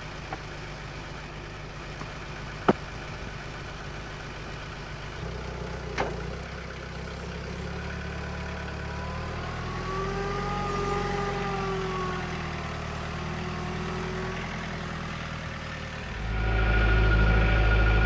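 An engine running steadily, with two sharp knocks early on and a whine that rises and falls in pitch partway through; it gets clearly louder about sixteen seconds in.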